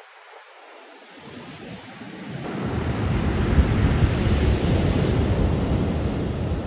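Heavy storm surf breaking on a beach, with a deep rumble of the waves and wind on the microphone. It is fainter for the first couple of seconds, then much louder from about two and a half seconds in.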